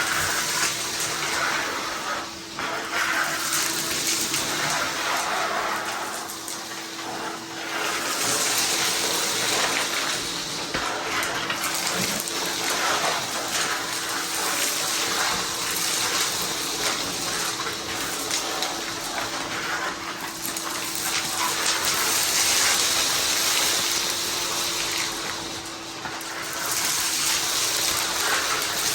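Ridgid 16-gallon wet/dry shop vac running and sucking up chunks of cement: a steady motor whine under a rush of air that surges and eases every few seconds.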